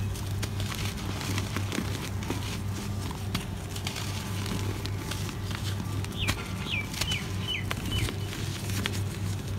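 Dry chunks of floor material crunching and crackling as a hand squeezes and crumbles them, powder sifting between the fingers. A bird chirps about five times in quick succession around two thirds of the way through, over a steady low hum.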